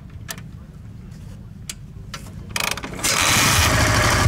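Soviet K750 motorcycle's side-valve boxer-twin engine, fitted with Mikuni carburettors, being kick-started. A few light clicks come first, then about three seconds in the engine catches and runs loudly with a pulsing low rumble.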